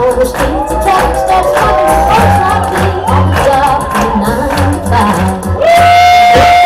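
Song playing for a stage act: singing over a steady beat. About five and a half seconds in, the music gets louder and a voice holds one long note.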